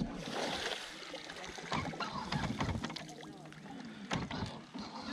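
Water churning and splashing at the bow of a bass boat, stirred up by the running bow-mounted Minn Kota trolling motor, with a few light knocks on the hull.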